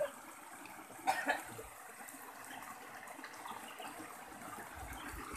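Shallow rocky stream running over and between stones, a steady trickling rush of water, with a short vocal sound about a second in.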